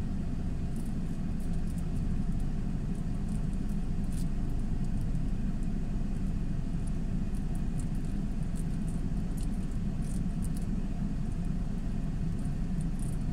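Steady low rumble of a motor vehicle, with a few faint light clicks.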